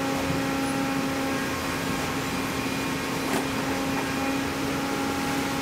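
A workshop machine's electric motor running with a steady hum, and a single sharp click about three seconds in.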